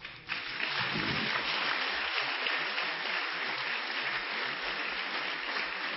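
Audience applauding, starting abruptly a moment in and going on steadily.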